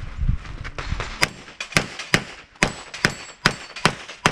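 Pistol fired in a rapid string of about eight shots, evenly spaced a little under half a second apart, starting about a second in.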